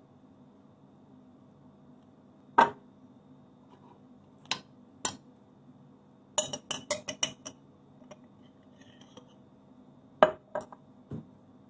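Cutlery clinking and tapping against a ceramic plate and a plastic jar while bread is buttered: separate sharp clinks, a quick run of about seven in the middle, and three more near the end. A faint steady hum sits underneath.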